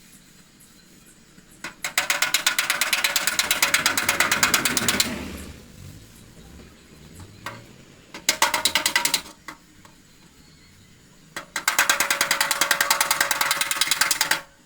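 Body hammer tapping fast on the sheet-metal hood of a VW Beetle, working out a dent, in three runs of quick, even, ringing blows with short pauses between; the first and last runs last about three seconds each and the middle one about a second.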